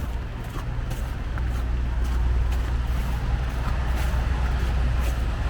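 Steady low rumble of street traffic, cars and buses going by, with light footsteps about twice a second.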